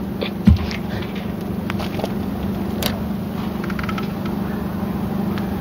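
Steady low hum of an idling engine, with a short thump about half a second in and a few faint clicks.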